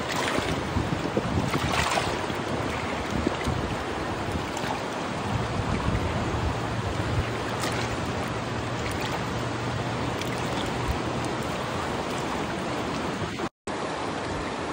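Swollen, fast-running river rapids rushing steadily, with wind buffeting the microphone. The sound drops out for a moment near the end.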